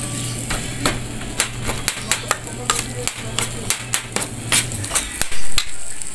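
Metal spoon clicking and scraping against a stainless steel tray as grilled eggplant flesh is pulled apart, in irregular sharp taps with a louder clatter a little past five seconds. A steady low hum runs underneath and stops just before five seconds.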